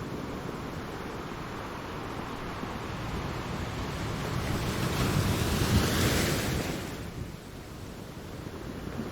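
Ocean waves on the shore: steady surf wash, with one wave building and breaking loudest about five to six seconds in, then receding.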